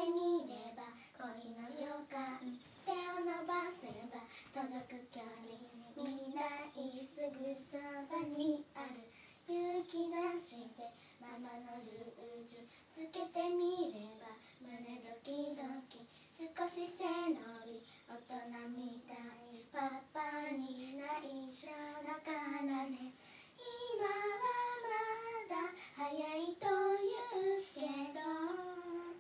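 Two young girls singing a song together without accompaniment, in phrases with short breaths between lines.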